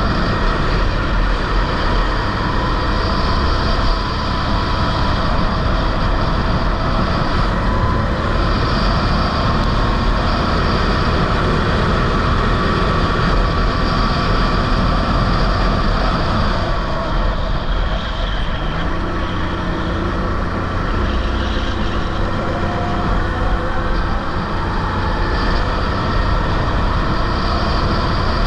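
Rental go-kart engine running at racing speed, heard onboard with wind rumbling on the camera's microphone; the engine's pitch rises and falls as the kart brakes and accelerates.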